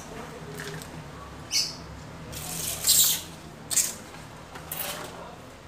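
Potting soil rustling and scraping under hands as it is scooped from a plastic tub and packed into a plastic plant pot. It comes as several short hissy bursts, the longest and loudest about three seconds in.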